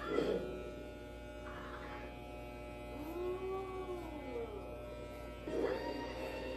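Electric hair clippers running with a steady hum during a home haircut. Midway through, one long call rises and falls in pitch.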